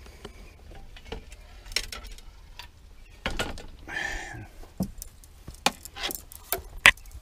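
Fishing rods and gear clattering in a vehicle's cargo area as a rod is pulled out: a string of sharp clicks and knocks, with a brief scrape about four seconds in.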